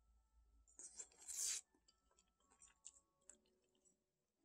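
Near silence with faint steady tones of quiet music, broken about a second in by one brief hissing rustle.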